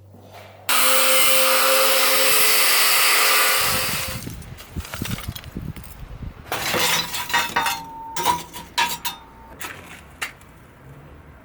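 A power tool grinding steel starts abruptly and runs for about three seconds, then winds down. It is followed by a run of sharp metallic clinks and knocks, some ringing briefly, as pieces of steel are handled.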